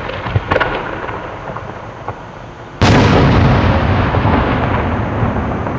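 A 10- to 12-inch aerial display shell bursting about three seconds in: one sudden heavy boom that rolls on in long echoes off the valley sides, fading slowly. Before it, the echoes of an earlier boom die away, with a few small pops.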